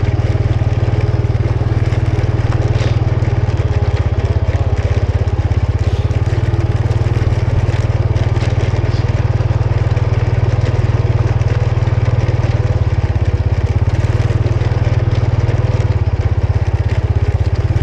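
Honda scooter's small single-cylinder engine running steadily under way, with the tyres rolling over a rough dirt track.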